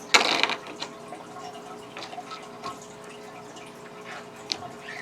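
Small plastic Lego pieces clicking and tapping as they are handled and pressed together, with a louder burst of handling noise near the start.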